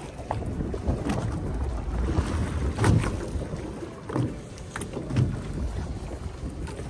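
Wind on the microphone and a low rumble aboard a small fishing boat at sea, with irregular knocks and taps; the strongest comes about three seconds in.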